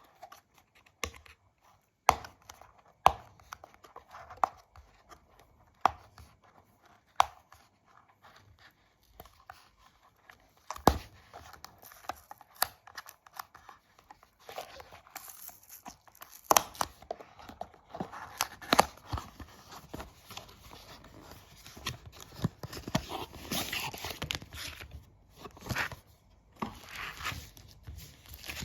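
Hands unboxing a phone charger: sharp clicks and taps in the first half, then packaging being torn and crinkled from about eleven seconds in.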